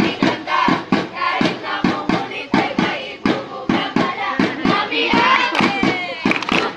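A group of voices singing a chant together over hand claps at a fast, steady beat.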